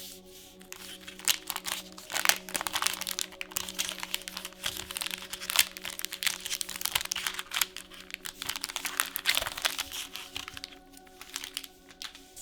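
Plastic trading-card booster pack wrapper crinkling and tearing as it is opened by hand, in dense sharp crackles that ease off near the end, over steady background music.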